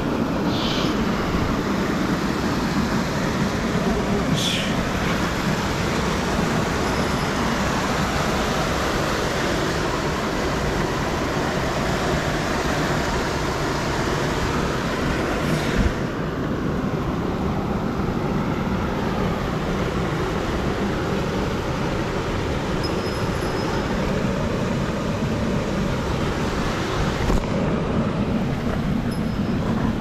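Mountain stream rushing over rocks in a small cascade: a loud, steady rushing noise that turns duller about halfway through, as its hiss drops away. Two short high clicks come in the first few seconds.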